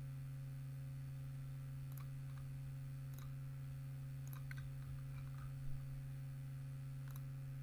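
Computer mouse clicking a handful of times, faint and short, as items are picked from a drop-down menu, over a steady low electrical hum from the recording setup.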